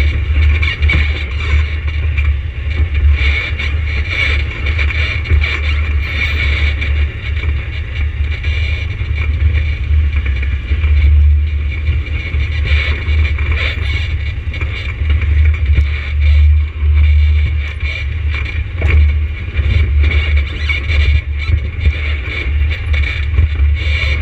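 An ATV engine running, a steady low drone that swells and dips over a rough background noise.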